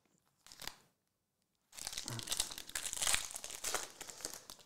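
Foil wrapper of a Prizm UFC trading-card pack crinkling as it is torn open, starting about a second and a half in after a short rustle.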